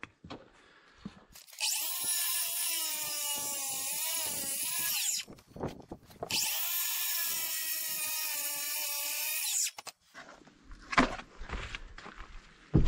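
Angle grinder with a diamond blade cutting cultured stone: two runs of several seconds each with a short break between, the whine dipping and wavering as the blade bites. A few knocks of the stone being handled follow near the end.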